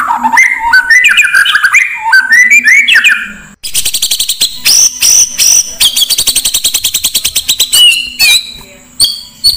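Oriental magpie-robin (kacer) song from a lure recording mixed with master songs. First comes a run of loud sweeping whistled phrases. A little over three seconds in it switches abruptly to rapid, high chattering trills.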